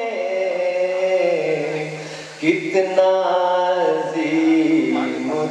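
A man chanting a devotional recitation without accompaniment, in long held notes that step down in pitch, with a new phrase starting partway through.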